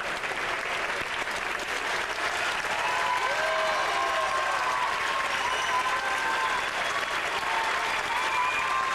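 Theatre audience applauding steadily at an opera curtain call, with voices shouting out over the clapping from about three seconds in.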